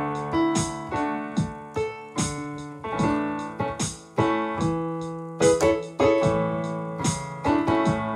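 Digital keyboard played in a piano sound: slow worship chords, each struck and left to ring and fade before the next, about one to two a second.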